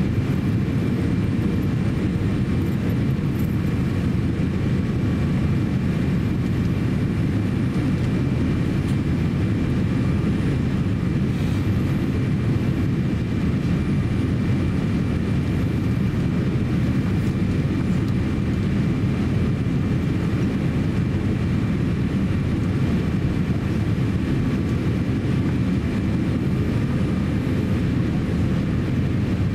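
Cabin noise inside a Boeing 787-8 airliner on final approach: a steady low rumble of engines and airflow, with a faint steady high whine.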